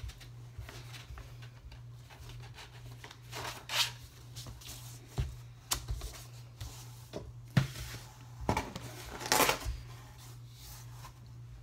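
Paper rustling and crinkling in scattered bursts as a hardcover book with a stiff, wax-paper-like jacket is handled and its pages turned, with a few sharp taps as books are picked up and set down. A steady low hum runs beneath.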